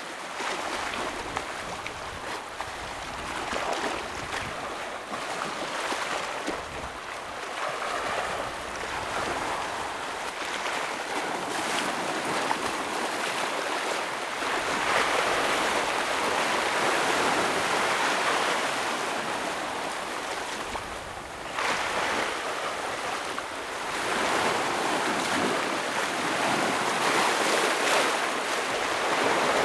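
Ocean waves breaking and washing over rocks: a continuous surf wash that swells louder several times and eases off in between.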